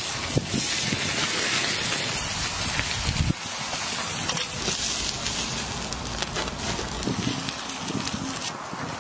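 Whole shrimp sizzling on a grill over open flames: a steady hiss with small scattered pops and crackles.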